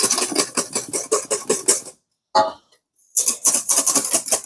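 Wire whisk beating a frothy eggnog mixture in a stainless steel bowl: quick, repeated scraping and clattering strokes against the metal. The beating stops for about a second midway, then starts again.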